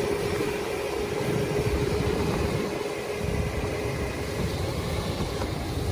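Engine of a Sherp amphibious all-terrain vehicle running steadily, with a steady hum that fades out about four seconds in.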